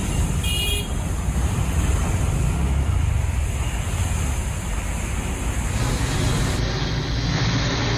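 Steady rushing, rumbling noise of wind and floodwater picked up outdoors, with wind buffeting the microphone, and a brief high tone just under a second in.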